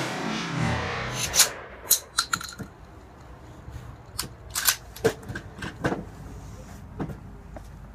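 The last of a 20-gauge shotgun blast fades out in the first second. It is followed by a scattered series of sharp clicks and knocks as the shotgun is handled and set on the wooden shooting bench.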